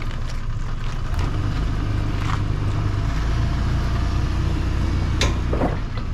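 Off-road 4x4 truck engine running steadily at low revs, with a few short, sharp knocks over it, the clearest about five seconds in.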